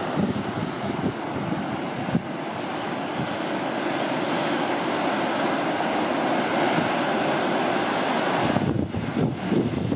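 Heavy ocean surf breaking and washing over rocks, a steady roar, with wind on the microphone.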